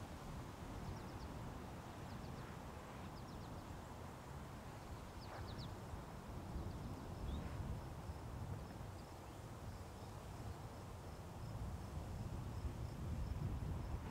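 Soft footsteps in loose sand under a low wind rumble on the microphone, a little louder near the end. Faint high bird chirps come in short pairs through the first half, and a faint high pulsing trill joins from about halfway.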